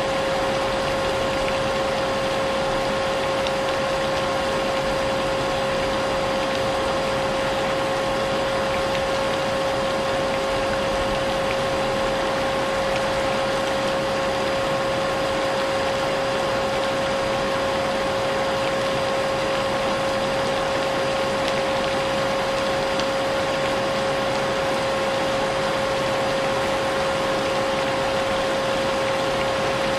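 Vacuum cleaner running steadily, its motor giving a constant whine over a rushing hiss, mixed with the even patter of rain.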